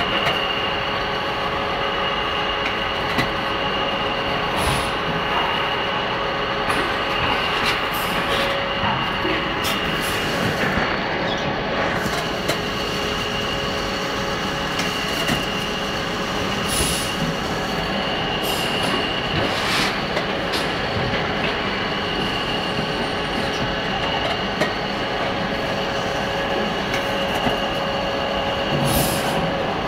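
Production-line machinery in a meat-packing plant running steadily: conveyors and a packaging machine make a continuous mechanical noise with a steady whine in it, and scattered clicks and clacks.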